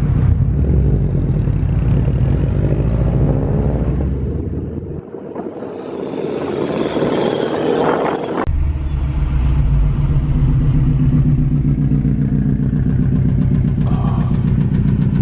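Subaru WRX's turbocharged flat-four engine idling with a rod knock after being drifted. The low engine note drops out for about three seconds partway through, with a hiss in its place, then returns.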